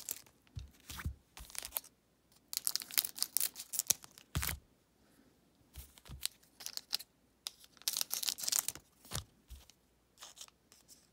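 Foil trading-card pack wrappers crinkling and tearing as they are handled and opened, in several short crackling spells, with a few dull knocks on the table in between.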